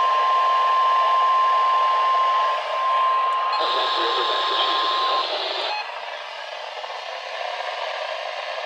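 NOAA Weather Radio 1050 Hz warning alarm tone: a single steady tone over the receiver's static hiss, cutting off about five seconds in. A louder rush of static breaks in shortly before the tone stops, and then only the radio hiss remains.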